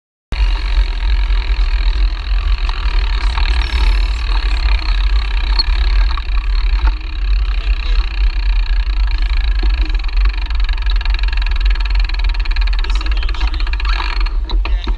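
Wind buffeting a GoPro's microphone while riding a bicycle, a loud, steady low rumble with an even hiss over it. It cuts in suddenly out of silence, and the hiss drops away near the end.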